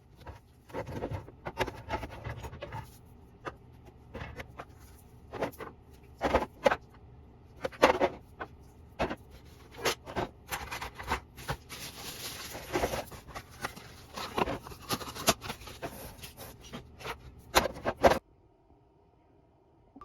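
Irregular knocks, taps and scrapes of objects being handled, with a rustling stretch in the middle, stopping suddenly near the end.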